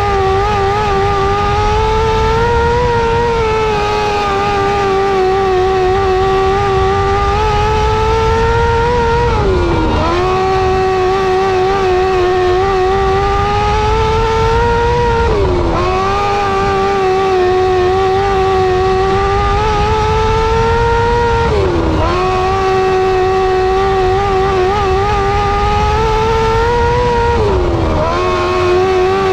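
A Restricted 600 micro sprint's 600cc motorcycle engine running at high revs, heard from the cockpit. About every six seconds its pitch drops sharply as the throttle is lifted for a turn, then climbs back as the driver gets back on the power.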